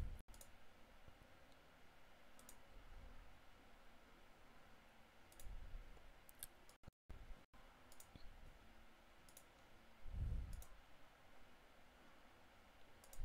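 Near silence with about eight faint, scattered computer mouse clicks, and two dull low thumps.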